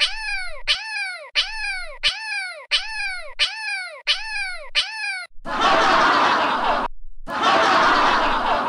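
Cartoon cat-meow sound effect repeated about eight times in quick succession, each meow falling in pitch. Then cartoon laughter sound effect, in two long stretches with a short break.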